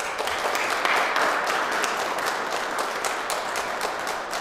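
Audience applauding, loudest about a second in and then slowly fading.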